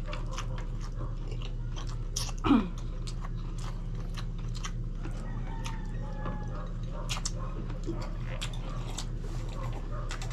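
Close-up eating sounds of grilled chicken and rice eaten by hand: chewing and lip smacking with many small wet clicks, over a steady low hum. About two and a half seconds in, one short sound falls in pitch, the loudest moment.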